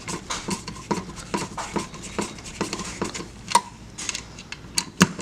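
Irregular light clicks and taps of small hard parts and a tool being handled while a wall light switch is fitted into its box, with a sharper knock near the end.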